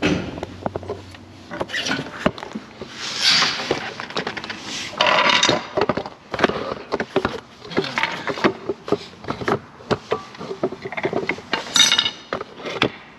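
Metal tools and car parts clinking, knocking and scraping during work under a car's front end: a run of sharp knocks and clinks, with two longer scraping stretches about three and five seconds in.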